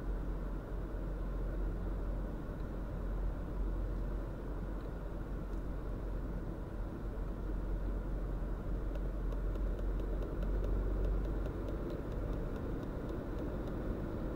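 Cabin noise of a 2018 VW Polo 1.0 TSI three-cylinder turbo petrol in fifth gear: steady low engine and road drone at about 80 km/h, growing a little louder in the second half as the car accelerates under load toward 100 km/h.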